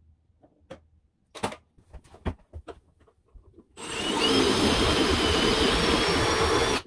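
Light knocks and handling, then about four seconds in an electric power tool's motor spins up and runs steadily for about three seconds, cutting off suddenly.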